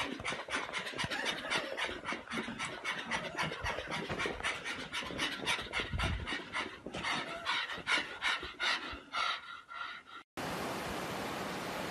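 A pug panting hard and fast, about six quick breaths a second. About ten seconds in it cuts off suddenly and a steady rushing noise takes over.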